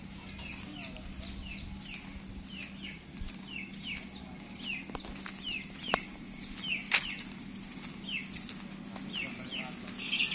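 A bird calling a short downward-slurred chirp over and over, about two a second, with a few sharp clicks and a faint steady hum underneath.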